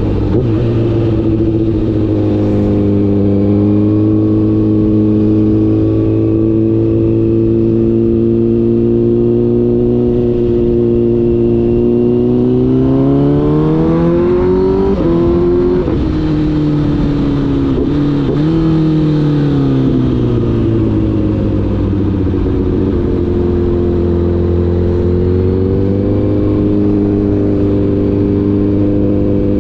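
Honda CBR1000RR's inline-four engine running while riding, held steady at first, then revs climbing about halfway through with two quick dips in pitch, settling lower and rising again near the end.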